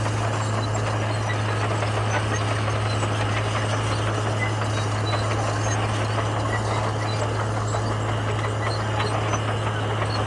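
Komatsu bulldozer's diesel engine running steadily, a constant low hum with dense mechanical noise over it.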